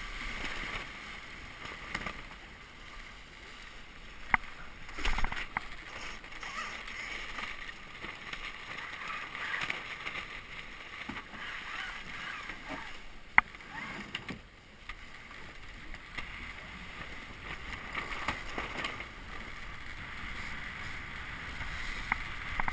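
Water rushing along the hull of a small planing sailboat (a Melges 17), with wind on the microphone. A few sharp clicks and knocks stand out, the loudest about four and thirteen seconds in.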